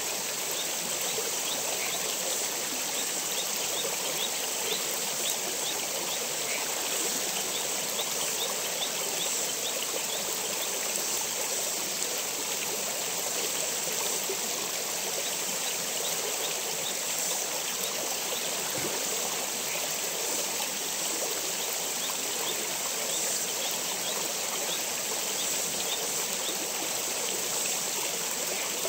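Shallow stream water flowing over rocks with a steady, unbroken rush.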